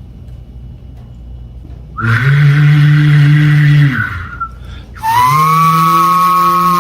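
A person's voice making two held vocal sound effects, each about two seconds long, over a low rumble. The second effect slides up in pitch as it starts and drops at the end.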